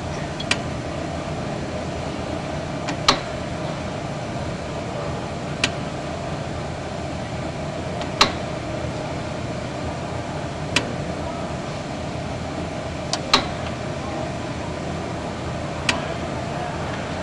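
Commercial automatic apple peeling and coring machine running with a steady mechanical hum, and a sharp click about every two and a half seconds.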